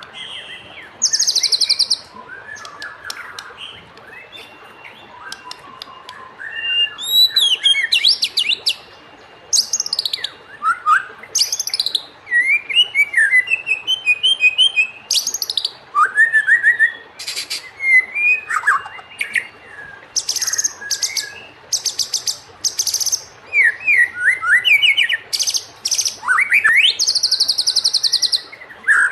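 White-rumped shama (murai batu) singing a varied song: clear whistled notes that slide up and down, broken by bursts of rapid, high rattling trills, phrase after phrase with short pauses between.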